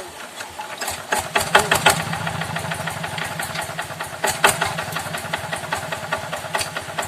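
Yanmar paddy-field tractor's single-cylinder diesel engine catching about a second in, then running with a rapid, even knock.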